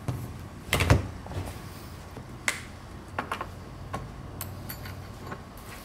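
Scattered clicks and knocks of a cool-shirt cooler unit being handled and set in place in a car. There is a heavier knock about a second in, a sharp click about two and a half seconds in, then several lighter clicks and ticks.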